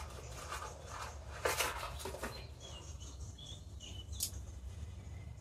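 Faint rustling and light clicks from handling a paper seed packet and sweetcorn seeds, with a few faint bird chirps about three seconds in, over a low steady hum.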